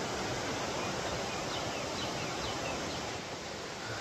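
Steady rush of creek water in the valley below, with a few faint short bird chirps about midway.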